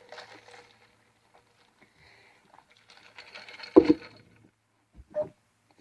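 Quiet breathing and wet mouth noises from a man between burps, with one brief loud mouth sound near four seconds in and a smaller one about a second later.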